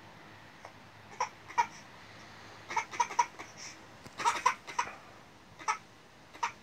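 Toddler crying in a string of short, high-pitched cries, most of them bunched from about three to five seconds in.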